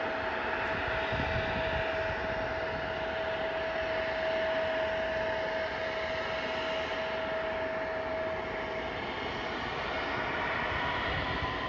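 Distant jet airliner's engines running with a steady whine and hiss. Near the end a rising whine begins as the engines spool up for takeoff.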